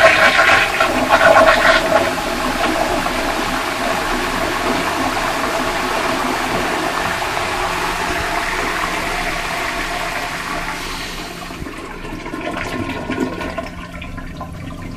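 Tankless toilet plumbed directly to the water supply, flushing: a loud rush of water, strongest in the first two seconds, that runs steadily and then dies down about eleven seconds in to a fainter trickle.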